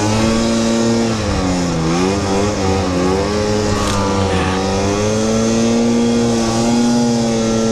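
Snowmobile engine running under throttle while riding over snow; its pitch dips and recovers about two seconds in, then holds steady.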